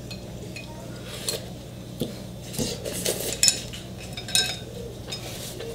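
Chopsticks clinking and tapping against plates and tableware, a string of short clinks, the loudest about three and a half seconds in, mixed with noodle slurping and chewing. A steady low hum runs underneath.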